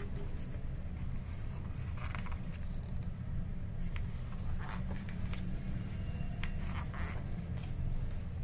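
Glossy pages of a large photo book being turned by hand: a few short paper swishes and rustles over a steady low hum.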